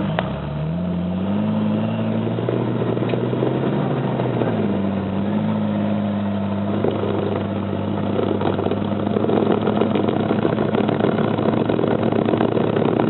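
Jeep Wrangler engine revving under load as it climbs a rock ledge. The pitch rises about half a second in, dips briefly around four seconds and rises again, and the sound gets louder and rougher from about seven seconds on.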